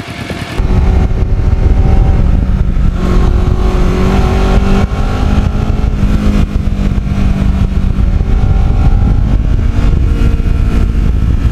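Kawasaki Ninja 650R parallel-twin motorcycle under way, heard from on board: a steady engine note over a heavy low rumble of wind. It comes in loud about half a second in, and the engine note climbs a little as the bike accelerates a few seconds later.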